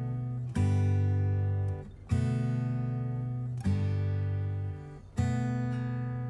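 Background music: strummed acoustic guitar chords, one struck about every second and a half and left to ring and fade.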